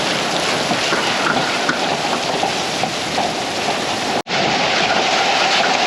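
Heavy rain mixed with little tiny hail falling: a dense, steady hiss with scattered small ticks of hailstones striking. The sound drops out for an instant about four seconds in, then resumes.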